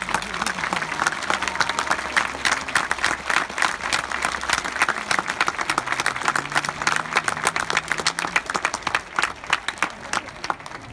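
Spectators applauding, many hands clapping at once in a dense, steady patter.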